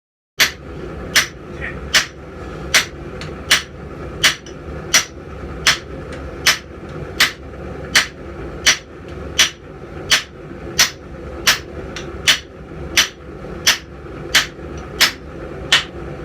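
Hammer blows on hot steel at an anvil, struck in a steady rhythm of about three blows every two seconds, each with a short metallic ring, over a steady low rumble.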